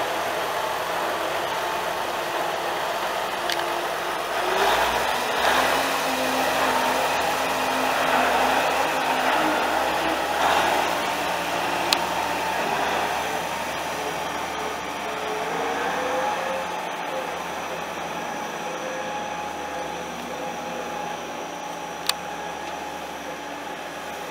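Cummins NTA-855 six-cylinder turbo diesel of a 1996 Case IH 9370 Steiger 4WD tractor running, its engine speed rising a couple of times. A few sharp clicks stand out over it.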